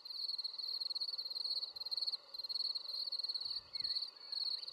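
Insects calling in a steady, high, fast-pulsing trill, with a few faint whistled calls near the end.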